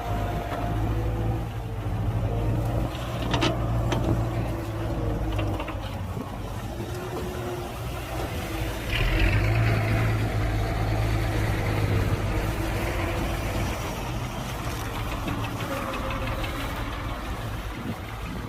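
Heavy diesel engine of earthmoving machinery running steadily, with a couple of short clicks about three and a half seconds in and a louder rushing noise starting about nine seconds in.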